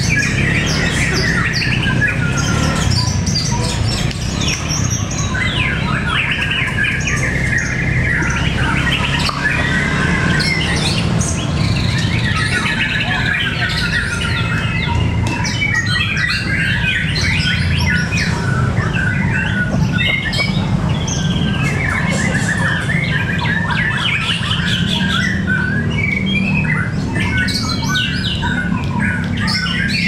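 Many caged white-rumped shamas (murai batu) of the fighter type singing at once in a rival song duel: a dense, unbroken overlap of quick varied phrases and squawky notes. A steady low rumble runs underneath.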